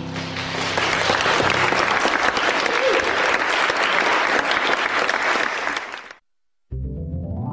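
Audience applauding steadily, fading out about six seconds in. After a brief silence, music starts just before the end.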